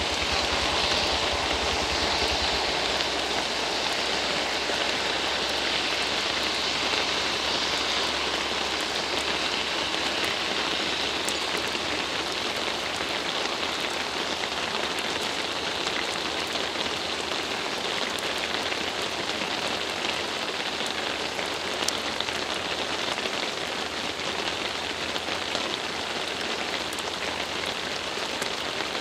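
Steady heavy rain falling on a wet road and roadside vegetation. A low hum fades out in the first few seconds, and there is a single sharp click about 22 seconds in.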